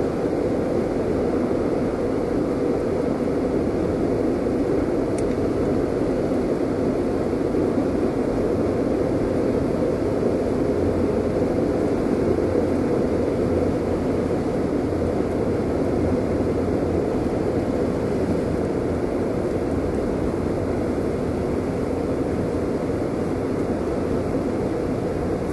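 Automated car wash air dryers blowing steadily, heard from inside the car's cabin as an even, unbroken noise.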